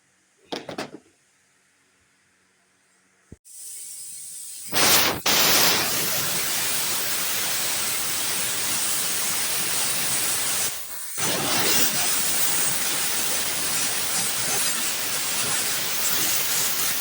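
A pressurised jet hissing steadily and loudly for about twelve seconds, with a brief break about eleven seconds in, after a couple of short knocks near the start.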